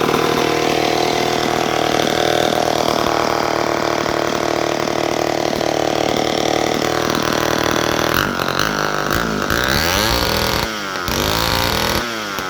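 Vintage Homelite 600D two-stroke chainsaw running at a steady speed, then revved up and down several times over the last few seconds. To the owner it runs well.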